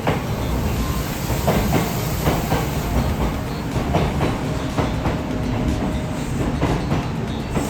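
Kintetsu Minami-Osaka Line electric train passing close by: a steady low rumble with the wheels clicking over the rail joints, the clicks mostly in close pairs.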